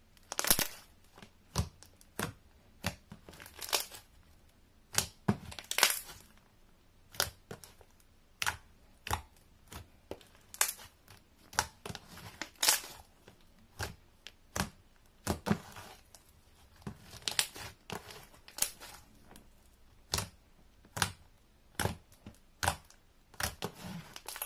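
Clear-based gold glitter slime being pressed and squished by hand against a tabletop, giving irregular sharp pops and crackles, about one or two a second.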